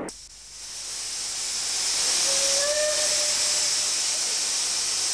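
Steam locomotive venting steam: a loud, steady hiss that swells over the first couple of seconds and then holds level.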